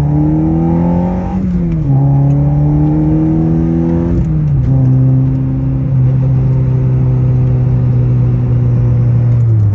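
Honda Civic Si's 2.4-litre four-cylinder engine, heard from inside the cabin, pulling up through the gears of its manual gearbox. The engine pitch climbs and drops at a shift a little over a second in, climbs again and drops at a second shift about four seconds in, then holds steady at cruise before falling off near the end.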